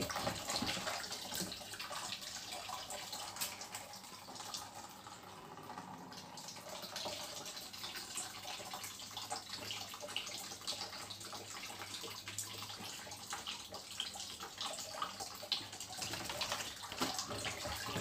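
Water splashing and dripping in a stainless steel kitchen sink as a wet cat's fur is washed and rinsed by hand, with many small irregular splashes.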